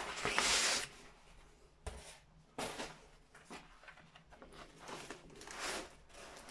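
Paper and a plastic-covered diamond-painting canvas rustling and crackling as the rolled canvas is handled and unrolled, loudest in the first second, then a few quieter rustles.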